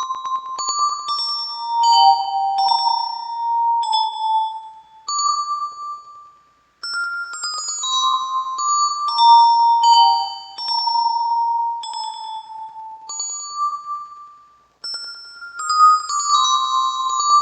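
Yamaha PSR-36 keyboard playing a short bell-like melody through a Vivlex Time Maker pedal in ping-pong delay mode, its notes echoing and overlapping as they die away. The phrase breaks off briefly and starts over about seven and again about fifteen seconds in.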